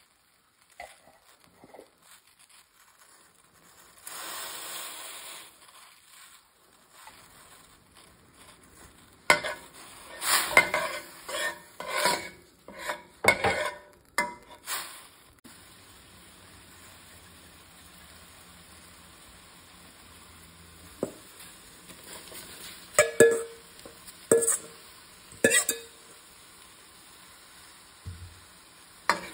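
Chopped garlic and scallions sizzling in a stainless steel pan cooked without oil, with a spatula scraping and clinking against the pan in two runs of quick strokes. There is a short hiss about four seconds in.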